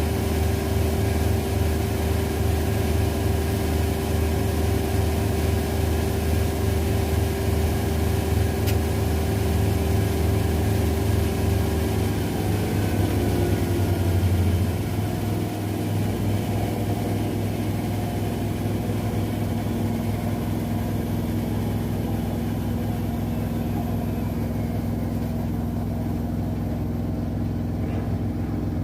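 LG Centum and Zanussi washing machines spinning their drums at high speed, a steady machine hum with a pulsing low drone. About halfway through the low drone stops pulsing and the sound drops a little, and a faint whine then falls slowly in pitch as one drum slows down.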